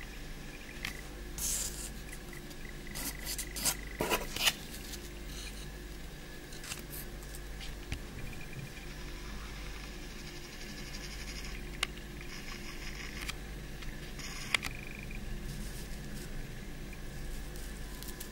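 Handling noise: a gold-plated leaf ornament being turned in the fingers, with scattered rustles, light scrapes and sharp clicks over a steady low hum. A cluster of louder rustles and clicks comes about four seconds in.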